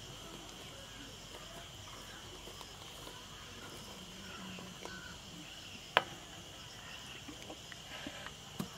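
Insects chirring steadily on one high pitch, with a single sharp click about six seconds in and a smaller click near the end.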